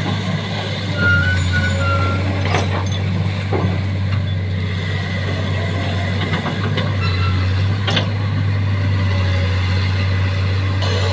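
Excavator's diesel engine running with a steady low hum. A few short high squeaks come about a second in, and several sharp metallic knocks follow.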